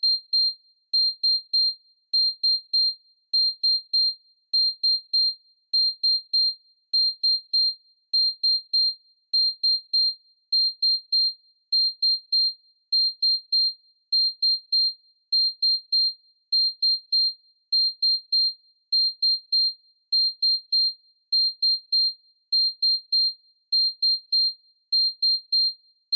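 ZTE WeGo (S155) phone's built-in alert tone playing through its speaker: groups of three short, high beeps at one pitch, repeating about every second and a quarter at an even level.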